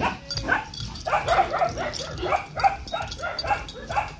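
A dog barking in a quick run of short, high yips, about three or four a second.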